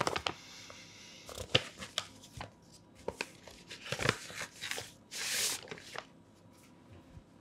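Paper crackling and rustling as a manila envelope is opened and a dossier sheet drawn out of it, in a string of short crinkles with one longer sliding rustle about five seconds in.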